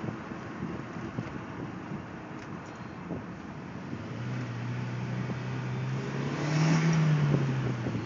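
Turbocharged 1.8-litre four-cylinder (1.8T) engine running, then revved about halfway through: the pitch climbs to a peak near the end and drops back. This is checked for a suspected exhaust leak.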